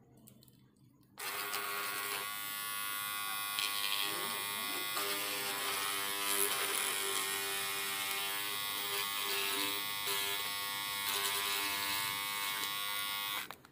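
Electric beard and hair trimmer switched on about a second in, buzzing steadily while its blade chews into the edge of a paper slip in a cutting test. The buzz stops suddenly near the end.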